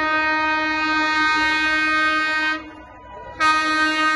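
Electric locomotive horn sounding a long, steady single-note blast that stops about two and a half seconds in, then sounds again after a short pause near the end.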